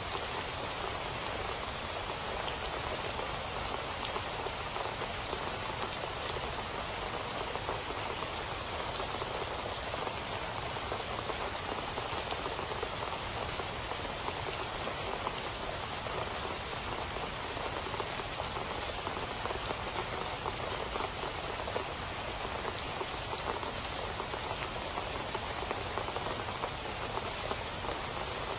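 Steady rain falling, a continuous even hiss with many small drops ticking through it.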